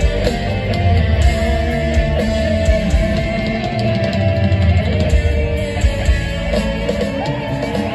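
Live heavy metal band playing at full volume, with electric guitars and bass prominent, heard from the audience in an arena.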